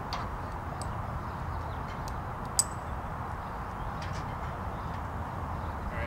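Rope and a steel carabiner being handled: light scattered clicks and one sharp metallic clink about two and a half seconds in, over a steady low outdoor rumble.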